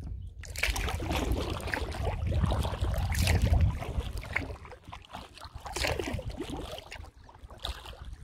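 Kayak paddle dipping and splashing in the water, with water trickling off the blade, over a low rumble during the first half.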